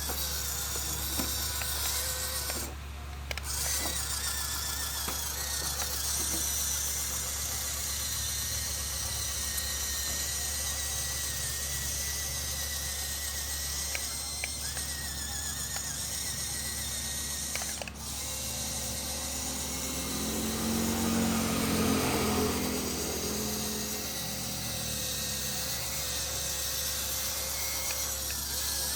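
Small motor and gear mechanism running steadily with a whine, a little louder for a few seconds past the middle.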